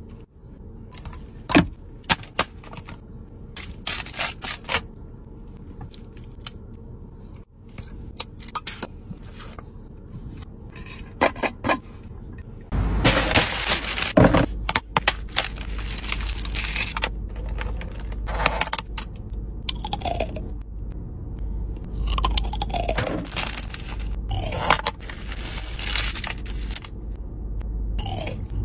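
A few sharp clicks and taps, then from about halfway a plastic carrier bag rustling and crinkling loudly as it is handled and opened. After that come repeated scrapes of a plastic fork through saucy food in a plastic takeaway tray.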